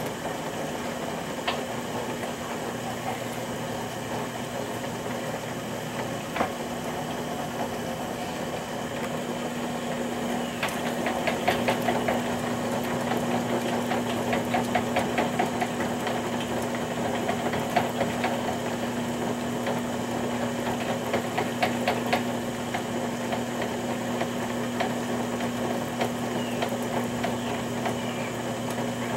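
Electric potter's wheel running with a steady motor hum as wet clay is thrown on it by hand. Bursts of rapid ticking come and go from about ten seconds in.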